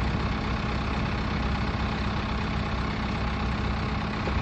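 An engine idling steadily with a constant low hum, most likely the equipment used to move the tree.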